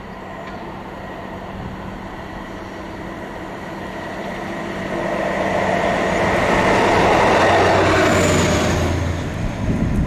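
Diesel engine of a self-propelled rail track machine approaching and passing at low speed. It grows louder to a peak about seven to eight seconds in, then fades, with the wheels running on the rails and a brief thin high squeal about eight seconds in.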